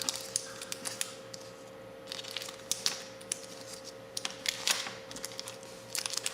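Small lighter parts being handled on a tabletop: scattered light clicks and taps with a little rustling, over a steady faint hum.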